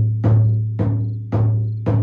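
30 cm Lakota frame drum, a single-headed hand drum laced at the back, beaten in a steady, even beat of about two strokes a second. Each stroke gives a low tone that rings and fades until the next.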